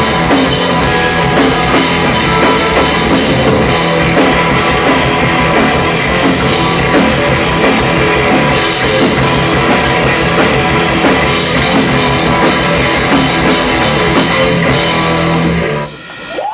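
Live rock band playing loud, with electric guitars, electric bass and a drum kit; the song stops abruptly near the end.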